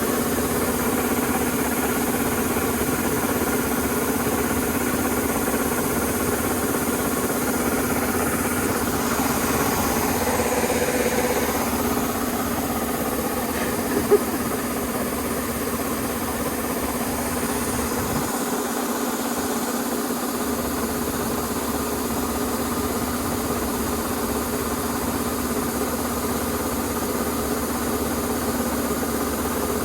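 Rice combine harvester's diesel engine running steadily at constant speed, with a single sharp knock about fourteen seconds in.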